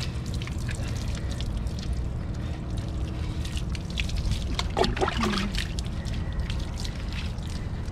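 Water poured from a plastic dipper splashing and trickling over a soapy husky puppy's coat and onto concrete, with hands rubbing the wet fur. A brief voice-like cry sounds about five seconds in, over a steady low background rumble.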